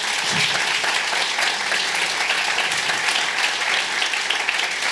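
Congregation applauding: many hands clapping steadily together.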